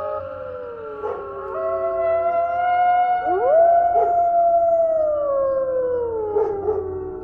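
Several canines howling at once, long overlapping calls that each swoop up and then slide slowly down in pitch, over a faint steady low hum.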